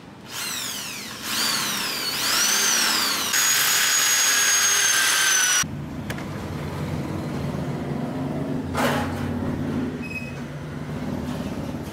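Corded electric hand drill boring into the dB-killer insert of a motorcycle silencer: the motor whine glides down and up as the trigger is worked, then holds at full speed and cuts off sharply about five and a half seconds in. A lower steady hum follows.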